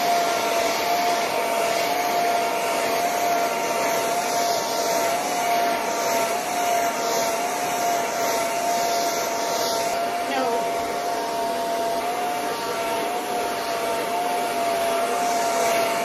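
Handheld hair dryer with a comb attachment running steadily on thick natural hair: a constant airy rush with a steady whine whose pitch wavers slightly as the dryer is moved.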